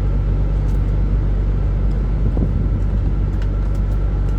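Steady low mechanical hum with a faint higher steady tone above it, and a few faint clicks about two and three and a half seconds in.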